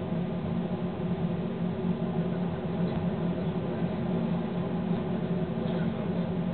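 Steady running noise of a train at speed heard from the driving cab: a constant low hum from the locomotive under an even rush of wheel and rail noise.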